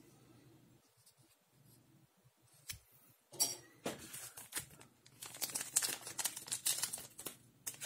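Handling noise from a plastic model kit: rustling and quick light clicks as parts and packaging are moved about. After a quiet stretch with a single click, it starts about three seconds in.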